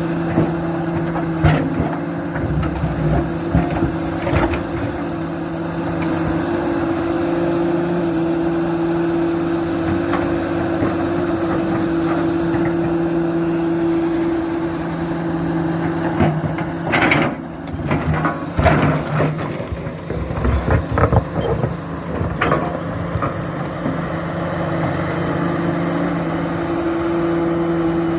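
Komatsu PC400 hydraulic excavator's diesel engine running steadily under working load. A few sharp knocks come early, and a burst of clanks and knocks comes about two-thirds of the way through, typical of the bucket working rock.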